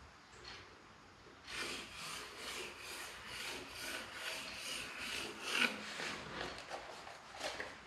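Pencil scribbling back and forth across a wooden board: a quick, even scratching of about three strokes a second, starting about a second and a half in. A few light clicks follow near the end.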